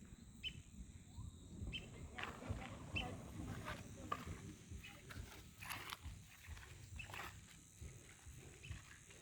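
Faint birds chirping: short, scattered calls over an uneven low rumble of wind on the microphone.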